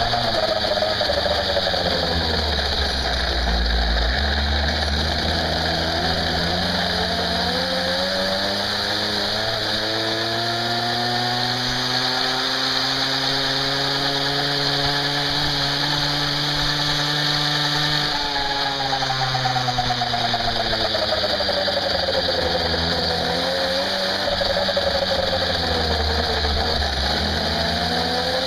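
Goped GSR 25 gas scooter's small two-stroke engine running under way. Its pitch sinks, then climbs and holds high for several seconds, drops sharply about two-thirds of the way through, and rises again near the end.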